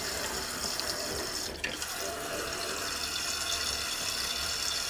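Water rushing steadily from a newly installed toilet fill valve into the tank of a Toto one-piece toilet as it refills, with a brief click about a second and a half in.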